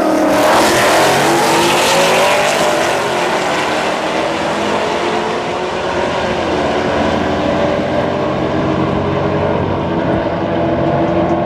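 Camaro and Mustang engines at full throttle in a roll race, the engine note climbing as the cars pull away from a roll of about 40 mph. The sound then holds as a steady note, stepping down in pitch about six and a half seconds in.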